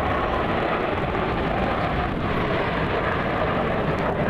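Aircraft engine noise from a plane flying overhead, a steady, even sound.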